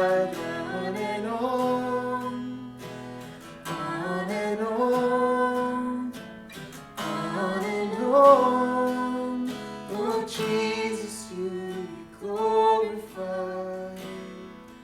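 Music from a live worship band: acoustic guitar with wordless sung phrases that slide up and hold, as the song winds down and fades near the end.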